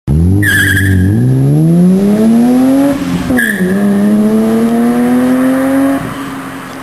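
Car engine accelerating hard: its pitch climbs, drops sharply at a gear change about three seconds in, then climbs again and fades near the end. A short tyre squeal comes at the start and again at the gear change.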